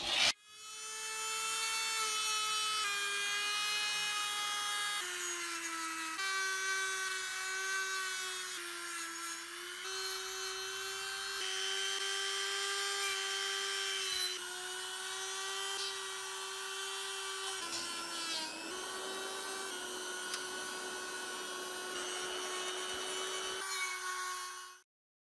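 Small high-speed rotary tool fitted with wire-brush and buffing wheels, scrubbing rust off small steel parts. Its steady whine dips in pitch and recovers several times as the wheel is pressed on, over a scratchy hiss, and it cuts off suddenly near the end.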